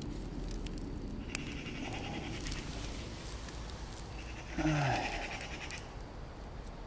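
A man breathing hard, with one short groan that falls in pitch about four and a half seconds in.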